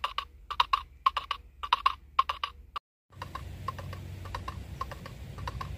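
Clip-clop hoofbeat clicks for the toy horses walking, in pairs about twice a second. About three seconds in they turn fainter under a steady background hiss.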